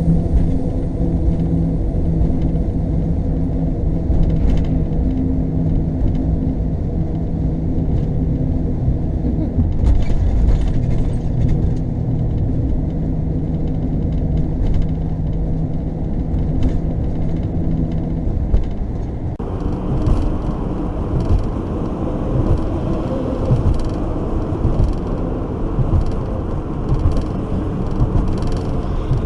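Road noise inside an RV cabin while driving at about 33 mph over the Mackinac Bridge's open steel grate deck: a steady rumble with a hum. About two-thirds in, the hum gives way to a broader, hissier noise.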